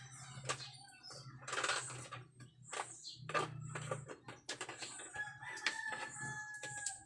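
Small objects being picked up and set down, with many short clicks and rustles, and near the end a long steady held call lasting about two seconds.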